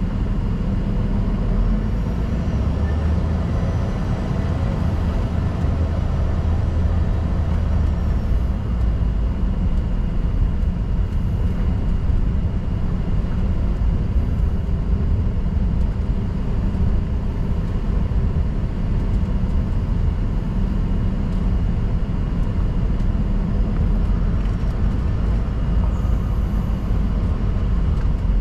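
Cabin noise of an Embraer ERJ-145 regional jet, heard inside the cabin: a steady low rumble from its two rear-mounted Rolls-Royce AE 3007 turbofans and the airframe, with a faint steady high tone.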